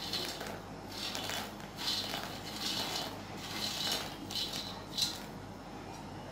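Puffed fox nuts (makhana) swept by hand off a steel plate into a steel pot of milk: a string of light rattles and scrapes, roughly one every half second to a second.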